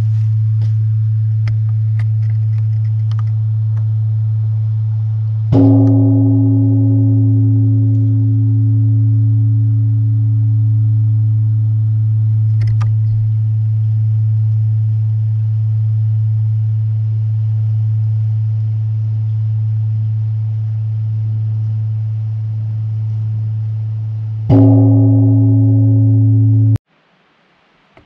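Large Korean Buddhist temple bronze bell rung for the evening, struck twice about nineteen seconds apart. Each stroke rings out over a deep, steady hum that swells and ebbs slowly as it lingers, and the sound cuts off suddenly near the end.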